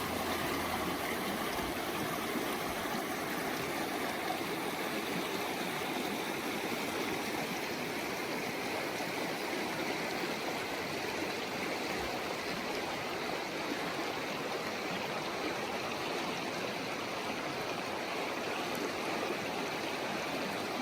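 A mountain river running: a steady rushing and gurgling of water over rocks.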